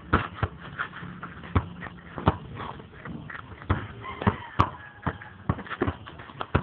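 Irregular thuds and knocks of pickup basketball on a hard court, about two a second: a ball bouncing and feet landing, with a short voice and one sharp click about halfway through.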